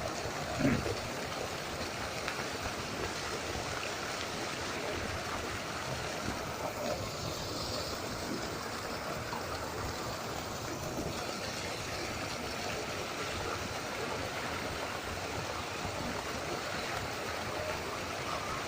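Waterfall water pouring and splashing in a steady rush, with a brief low bump just under a second in.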